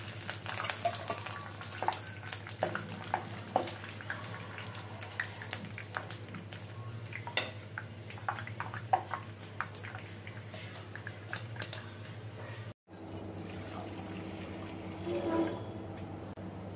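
Semolina kalojam balls sizzling and crackling as they deep-fry, with clicks of a metal wire strainer against the pan as they are scooped out, over a steady low hum. After a cut about 13 s in, water boiling in a pot.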